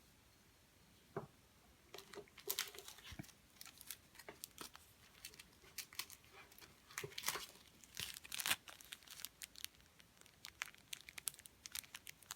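Plastic parts packaging being handled and opened: a single click about a second in, then irregular faint crinkling and rustling with light clicks.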